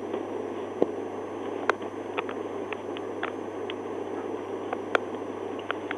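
Steady hiss and low hum inside a parked police cruiser with the engine idling, broken by a few short, sharp clicks.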